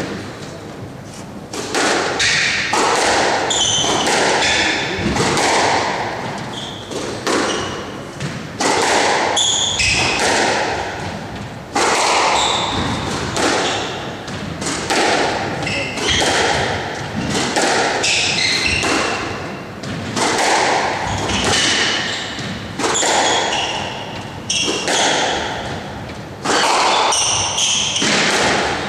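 Squash rally on a glass-backed court: the ball smacked by racquets and cracking off the walls about once a second in a continuous exchange, with shoes squeaking on the wooden floor in between.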